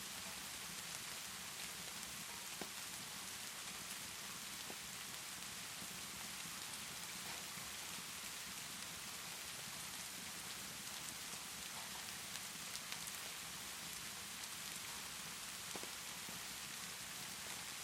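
Steady rainfall, an even hiss, with scattered faint clicks and pops from a crackling fireplace.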